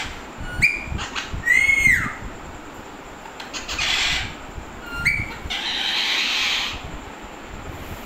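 Alexandrine parakeets calling: short whistled calls and an arched call that rises then falls in the first two seconds, then two harsh, raspy screeches, one around four seconds and a longer one from about five and a half to nearly seven seconds.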